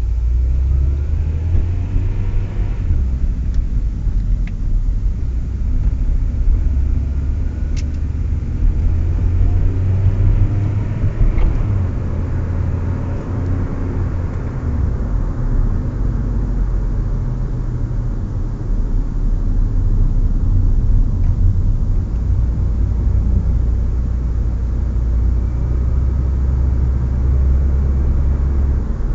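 A 1999 Honda Prelude driving, with a strong steady low rumble throughout and a faint thin high whine near the start and again near the end. The whine came on after a timing-belt change and went away once worn engine mounts were replaced with OEM ones.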